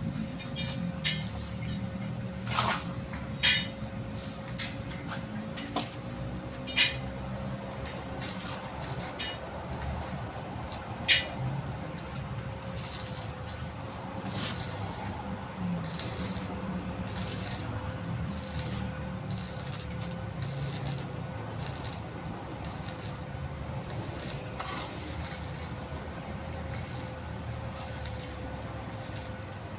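Construction work: scattered sharp metallic clinks and knocks of tools and materials, irregular and most frequent in the first dozen seconds, over a steady low hum and a faint constant tone.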